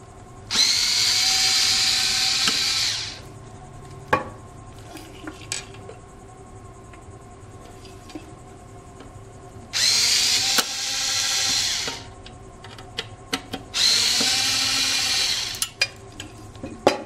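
Craftsman Evolv cordless screwdriver whirring in three runs of about two to three seconds each, backing out the screws of a computer power supply's metal case. Small clicks and knocks between the runs.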